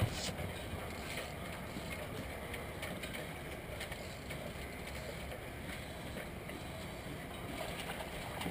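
Steady wind rumble on the microphone with faint, scattered clicking from a fishing reel being cranked as a hooked channel catfish is reeled in; a single knock right at the start.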